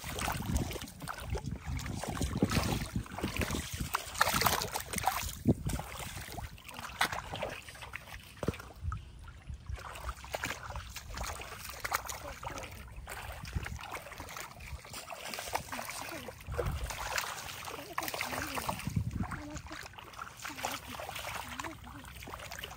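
Splashing and sloshing in shallow muddy water as someone moves about and grabs at fish by hand, in irregular bursts of splashes.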